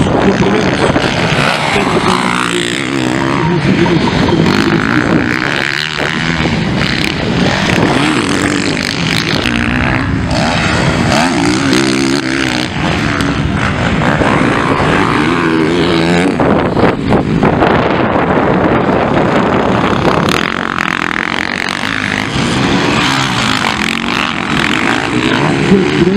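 Motocross dirt bike engines racing on a dirt track. Their engine notes rise and fall repeatedly as the riders rev through jumps and turns.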